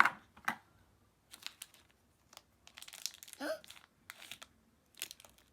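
Plastic packaging crinkling and rustling in short, irregular bursts as small toy-kit pieces are handled and unwrapped.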